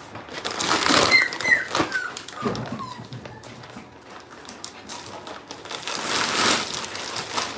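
A dog whining in several short, high, falling whimpers, with black plastic trash bags crinkling and rustling as they are handled.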